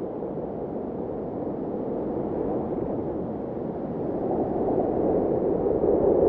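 Blizzard wind blowing steadily, a low, hollow rushing that swells louder near the end.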